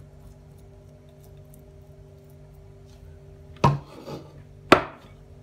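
A plastic spatula scraping through and stirring ground chicken sausage mixture in a glass bowl, with two sharp knocks about a second apart near the end, over a steady low hum.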